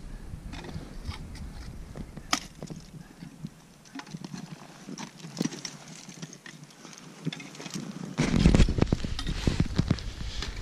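Irregular clicks, knocks and scrapes of ice-climbing gear (ice tools, crampons and clipped metal hardware) against rock and ice. From about eight seconds in, a louder low rumble buffets the microphone and the knocks come thicker.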